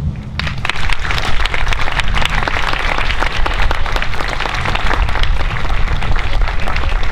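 Audience applauding, the clapping starting about half a second in and keeping up steadily.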